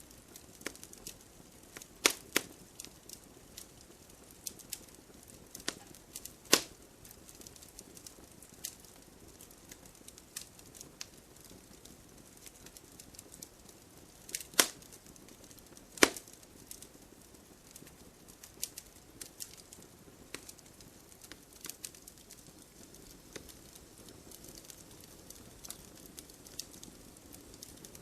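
Campfire crackling: burning wood gives off a scatter of small crackles over a low hiss, with five loud, sharp pops, two of them close together early on and two more just past the middle.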